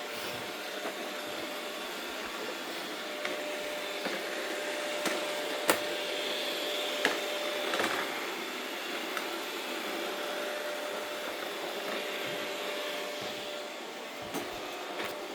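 Robot vacuum cleaner running with a steady whir and a faint steady tone through the middle, broken by a few sharp clicks.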